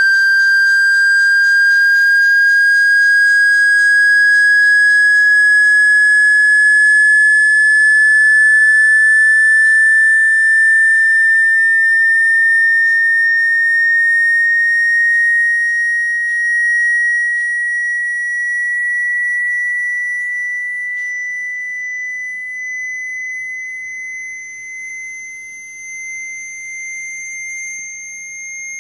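Pure electronic sine tone of a speaker water-ejection sound, rising slowly and steadily in pitch. It grows quieter and wavers in level in the second half.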